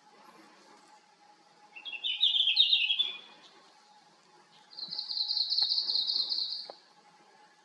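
Red-flanked bluetail singing two high phrases: a short warbled phrase, then a longer rapid trill of even notes. A faint steady hum runs underneath.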